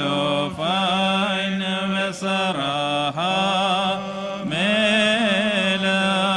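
A man chanting a solo liturgical melody into a microphone, with slow, ornamented phrases that glide up and down and break briefly for breath. A steady low drone holds unbroken beneath the voice.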